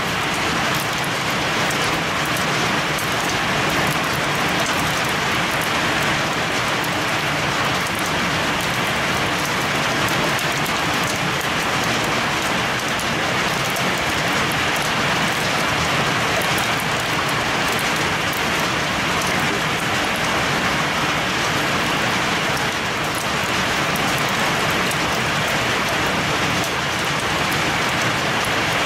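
Heavy rain mixed with hail pelting a concrete ledge and leaves: a steady, dense hiss full of small rapid impact clicks, unbroken throughout.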